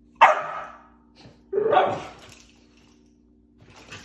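Dog barking: two loud barks about a second and a half apart, then a fainter sound near the end, over a steady low hum.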